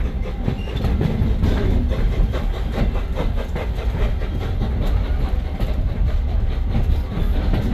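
Passenger coach rolling along the track, heard from inside: a steady low rumble with the wheels' faint clickety-clack running through it.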